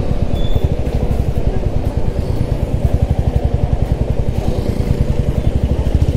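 Royal Enfield motorcycle engine running on the move, a loud steady low pulsing beat.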